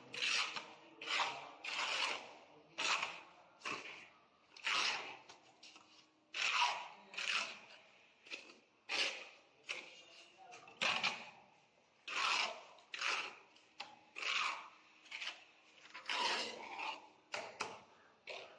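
Hand trowel scraping and spreading cement mortar over a brick stair tread, in repeated short scraping strokes about one or two a second.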